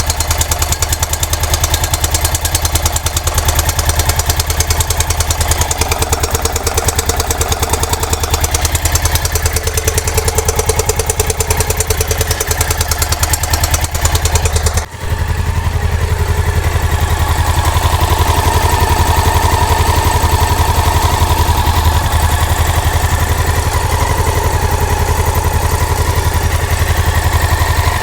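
Honda NX650 Dominator single-cylinder engine idling with a loud, fast, even clacking from inside the engine, a fault whose cause the owner does not know. After a brief dip about halfway through, a steady higher tone joins the clacking.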